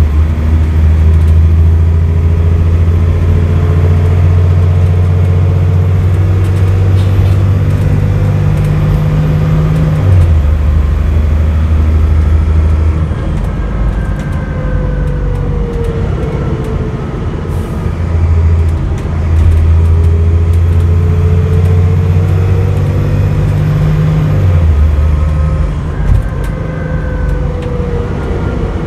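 Dennis Trident double-decker bus's diesel engine heard from inside the lower deck, working hard at full throttle with a deep steady drone that drops as it changes up a gear about ten seconds in. It eases off for a few seconds, then pulls hard again and changes up once more near the end, with a whine rising and falling above it.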